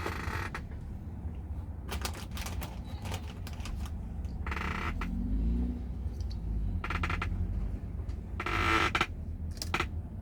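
Irregular clicks and taps of typing on a computer keyboard, in scattered short runs, over a steady low hum.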